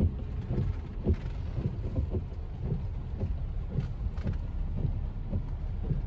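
Low rumbling noise heard from inside a vehicle cab, with many small irregular thuds through it.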